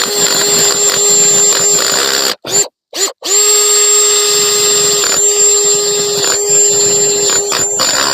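Drill driving a 4-inch chainsaw attachment, running steadily with a constant whine. It stops and restarts twice in quick succession about two and a half seconds in, then runs on. The chain is cutting only slowly through a quarter-inch sapling.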